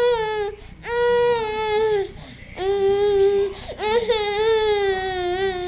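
Baby crying in four long wails, each held on a steady high pitch and sliding down at its end, with short breaths between.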